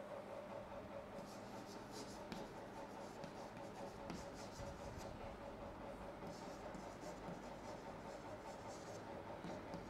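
Chalk scratching on a chalkboard in short, repeated strokes as words are written by hand, faint over a steady low hum.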